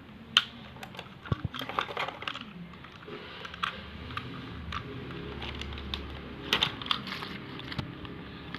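Small hard-plastic clicks and taps of a Robocar Poli transforming toy car being handled, its parts snapping and shifting as it is folded between car and robot. The clicks come irregularly, with a quicker cluster past the middle.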